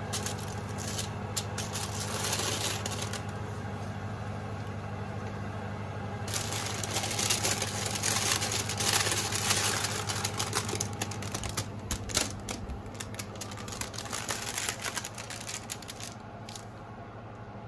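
Parchment paper rustling and crackling on a metal baking tray, with clicks and scrapes of the tray and a spatula as the sheet is worked off it. The sound is loudest from about six to eleven seconds in, with scattered ticks after that. A steady low hum runs underneath.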